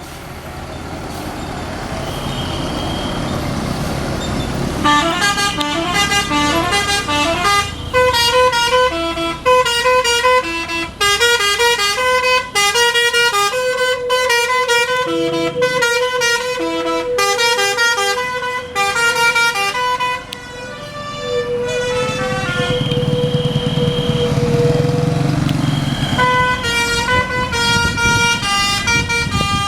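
A bus's Basuri telolet horn, a multi-note electric air horn, playing quick runs of stepped notes as a tune over the bus's running engine. The engine builds for about five seconds before the tune starts; about two-thirds of the way in the runs give way to engine rumble and a single held note, then the tune resumes near the end.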